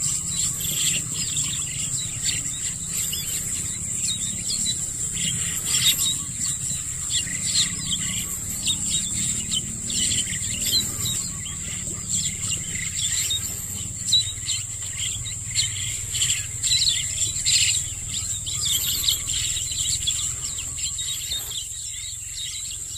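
A flock of small perching birds chirping busily, many short calls overlapping, over a steady high-pitched buzz of insects.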